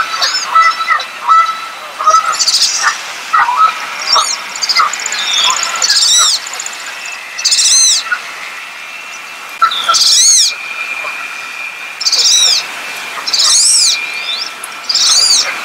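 Wood duck giving a series of high, thin whistled calls, each rising then falling, repeated every couple of seconds. Softer chirps from other small birds sound underneath.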